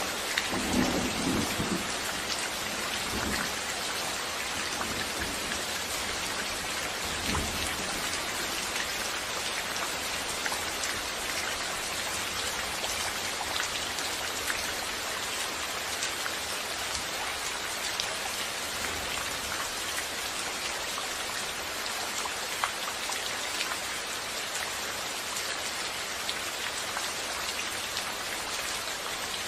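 Steady heavy rain falling, a continuous even patter. A few brief low rumbles come in the first eight seconds, the strongest about a second in.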